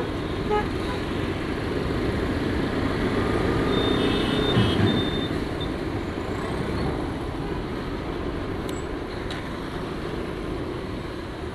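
Steady traffic noise heard from a motorcycle moving slowly through heavy city traffic, with cars and a bus close alongside and the bike's own engine running underneath.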